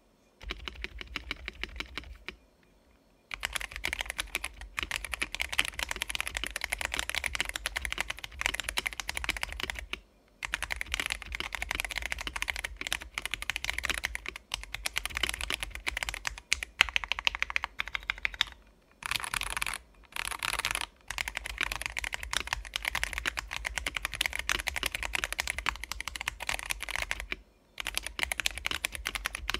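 Mechanical keyboard with Akko CS Jelly White switches in a Keychron V2, typed on fast and steadily. The keystrokes are clacky, with a few short pauses between runs.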